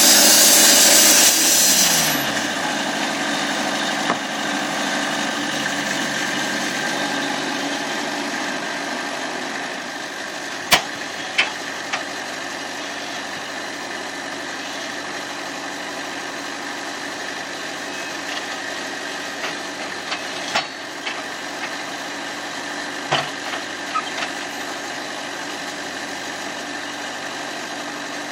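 Portable sawmill's engine running hard for about a second, then slowing with a falling pitch and settling into a steady idle. A few sharp knocks sound over the idle around the middle.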